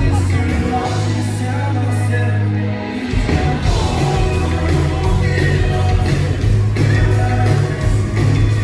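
Live pop-rock band playing loud at a concert, with a heavy sustained bass line and drums coming in about three seconds in.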